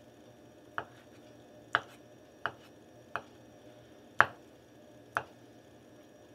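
Kitchen knife slicing through peeled hard-boiled eggs and knocking against a wooden cutting board: six sharp taps, roughly one a second, the loudest about four seconds in.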